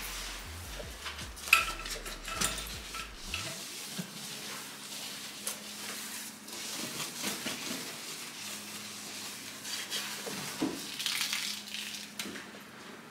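Kitchenware being handled during cleaning: dishes and utensils clinking and knocking, with scraping and rubbing between. The loudest knock comes about a second and a half in.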